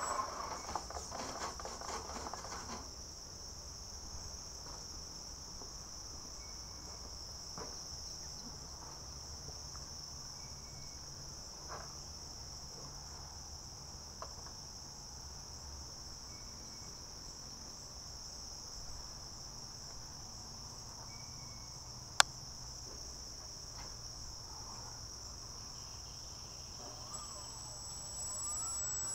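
Steady, high-pitched chorus of insects buzzing without a break, with a few faint short chirps over it. A pitched whine fades out in the first two seconds, and a single sharp click stands out about 22 seconds in.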